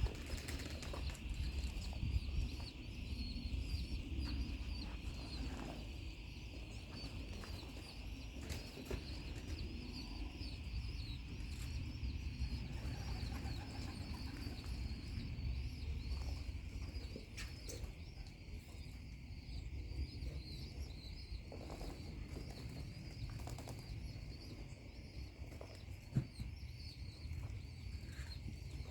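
Young pigeons flapping their wings as they bathe in shallow water bowls, with scattered short flaps and knocks.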